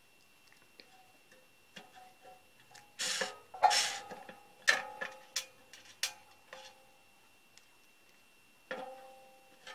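Sharp metal clicks and knocks of a screw and cordless screwdriver against a steel panel enclosure while a contactor is screwed in, the box ringing briefly after each knock. Quiet at first, then a scattered run of them from about three seconds in, and a few more near the end.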